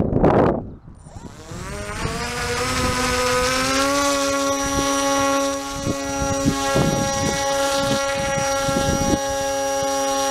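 Electric motor and propeller of an RC plane spooling up, its whine rising in pitch over the first few seconds and then holding steady at high throttle. There is a short burst of loud handling noise at the very start.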